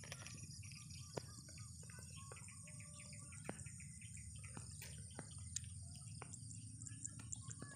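Faint open-field ambience: birds chirping now and then over a steady high insect drone, with a low rumble underneath and a few light clicks.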